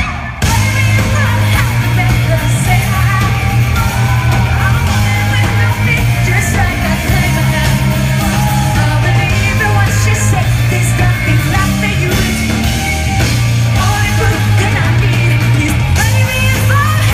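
Live rock band playing at full volume: electric guitars, bass guitar and drums, with a woman's lead vocal over them. The band comes back in hard about half a second in, after a brief break.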